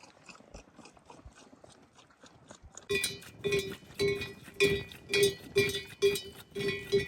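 A bell clanking about twice a second, with a steady ringing pitch, starting about three seconds in after a quiet stretch.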